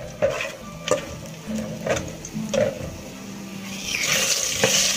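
Metal ladle scraping and tapping against a steel wok of frying garlic. About four seconds in, a loud, steady sizzle rises as raw duck pieces go into the hot oil.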